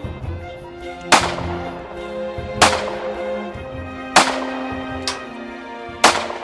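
Pistol shots fired one at a time at a target, four loud cracks about a second and a half apart with a fainter shot between the last two.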